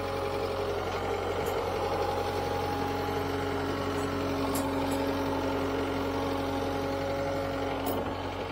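Takeuchi TL10 compact track loader's diesel engine running steadily while the machine carries a load of lumber, with a few faint clicks.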